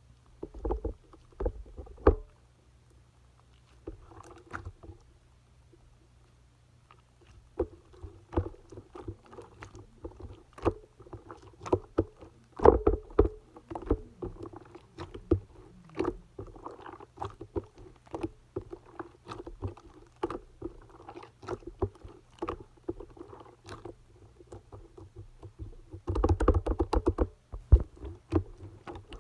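Clay-mixed slime being squished and kneaded by hand: a string of sticky clicks and small pops, with a couple of short pauses early on and a dense, louder stretch of squelching near the end.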